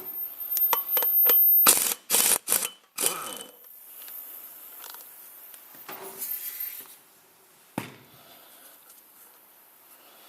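Workshop handling of tools and clutch parts: clicks and knocks, with several loud noisy bursts about two to three and a half seconds in, then quieter rubbing and a single sharp knock near the end.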